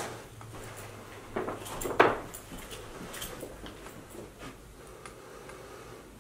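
Footsteps across a floor strewn with trash, with light clatter and knocks from debris underfoot and one sharp knock about two seconds in.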